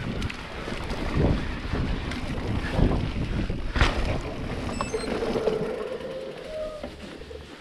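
Mountain bike riding fast down a dirt trail: tyres rolling over dirt and leaf litter, the bike rattling over bumps, with a sharp knock about four seconds in. Wind rushes on the microphone, and a short rising tone comes in after about five seconds.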